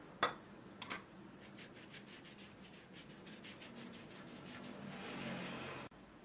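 Silicone pastry brush spreading melted butter over a thin sheet of rolled dough, rubbing in quick, even strokes about five a second and scrubbing harder near the end. Two sharp clicks come near the start.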